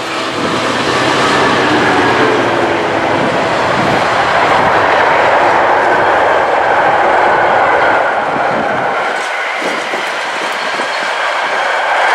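A train passing close by at speed: a loud, steady rush of wheels on the rails that builds in the first second and eases slightly about nine seconds in before swelling again.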